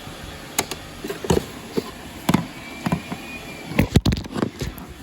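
Irregular plastic knocks and clicks from a Roomba robot vacuum being handled while its dust bin is checked for fullness, over a steady low hum that stops near the end.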